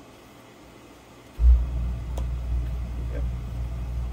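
A low, steady rumble starts suddenly about a second and a half in, with a brief loud jolt at its onset, and keeps going; a couple of faint light taps sound over it.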